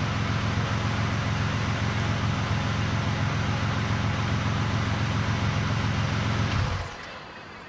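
Exhaust of a 2004 Pontiac Grand Prix GTP's supercharged 3.8-litre V6 idling steadily through a resonator-delete setup with two SS409 two-chamber mufflers and stock tips. The engine is shut off near the end and the sound stops abruptly.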